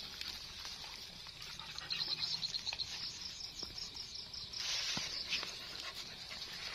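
Insects chirping in a quick, high-pitched pulsing trill over a steady background of field insects, with a couple of light knocks about five seconds in.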